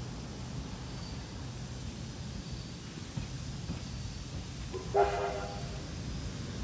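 Steam train approaching with a steady low rumble, and one short toot of the locomotive's whistle about five seconds in.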